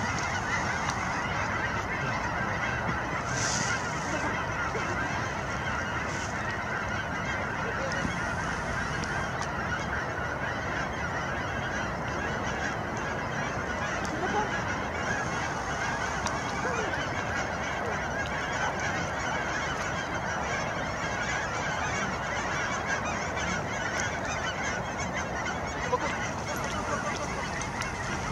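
A large flock of geese in flight, calling continuously: a dense, steady din of many overlapping honks.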